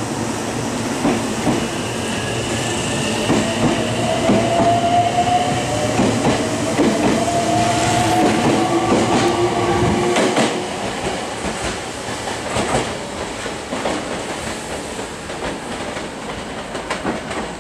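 Meitetsu 3300 series electric train pulling away from the platform: the whine of its VVVF inverter and traction motors rises in pitch as it accelerates, with wheels clacking over rail joints. The sound fades after about halfway as the train draws away.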